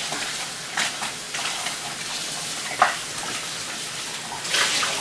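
Kitchen tap running into a stainless-steel bowl as green chiles are rubbed clean under the stream, a steady splashing hiss. A short knock about three seconds in, and the splashing grows louder near the end.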